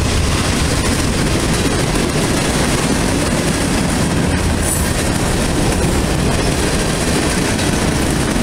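Freight train cars rolling past at speed: a steady, loud noise of steel wheels running on the rails.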